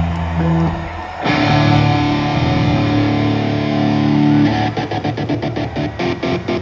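Amplified electric guitar and bass played live through stage amplification: low sustained notes that come in louder about a second in, breaking into a fast, choppy rhythm near the end.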